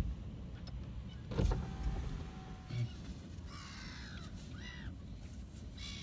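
Black-headed gulls calling: a few short, harsh calls about halfway through, with a dull thump near the start.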